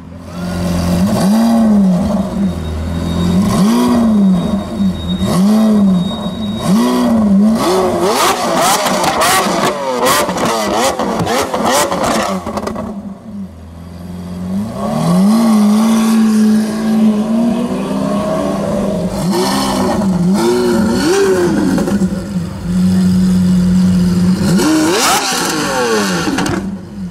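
Lamborghini Aventador's V12 with a Capristo aftermarket exhaust, revved in a string of quick blips, each rising and falling. A rapid run of exhaust crackles and pops follows, then more revs, some held briefly at a steady pitch.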